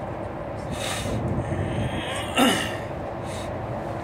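Steady engine and road drone inside a MAN shuttle bus cruising at speed, with a brief, loud, sudden noise about two and a half seconds in.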